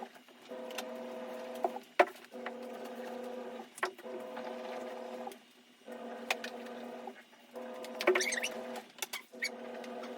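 A small electric motor hums in repeated spurts of a second or two, stopping and starting again several times, with clicks between runs.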